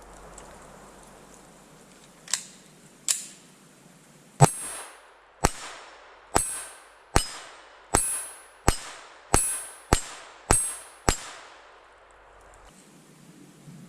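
A Smith & Wesson M&P 22 Compact .22 LR pistol fired about a dozen times in a steady string, some shots followed by a brief high-pitched ring.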